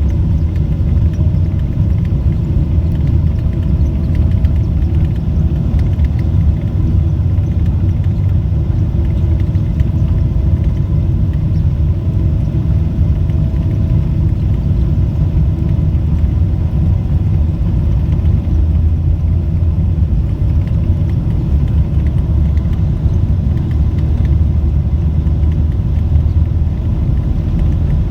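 Steady low rumble of a Boeing 777-300's engines and airframe heard inside the passenger cabin, with a faint steady whine over it.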